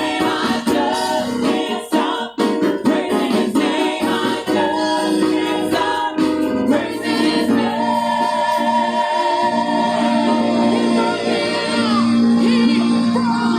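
Church praise team singing gospel music in harmony, with a sharp percussive beat in the first half that drops away as the voices hold long notes.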